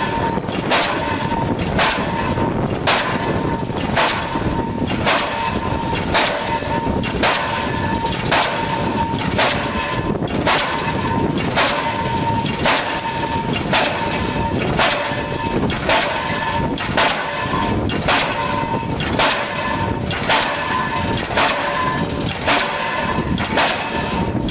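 Link-Belt diesel pile hammer driving a pile, firing with a sharp bang about once a second in a steady rhythm, over a constant low rumble.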